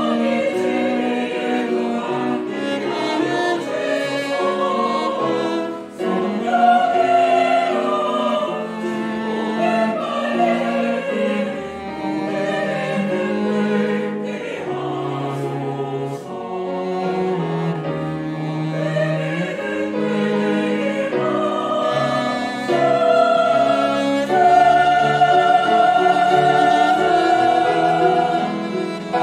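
Mixed church choir singing a Korean anthem in harmony, accompanied by grand piano, cellos and violin. It swells into a loud, held closing chord on 'Amen' near the end.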